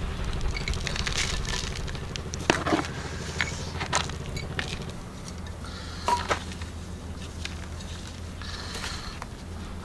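Potting soil rustling and crackling as it is sprinkled into a flowerpot and pressed down around the plants by gloved hands, in short scattered bursts. Under it is a steady low hum that drops away about halfway through.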